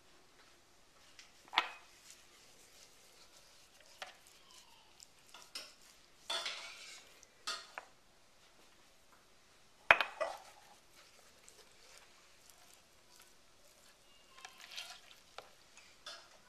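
Intermittent kitchen handling sounds while a chicken is being seasoned: scattered clinks and knocks of dishes and utensils against the counter, a short rustling shake about six seconds in, and one sharp knock about ten seconds in.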